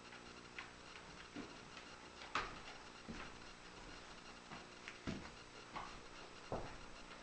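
Pieces of wood being handled on a workbench: a handful of light, scattered knocks and taps, the loudest about two and a half seconds in.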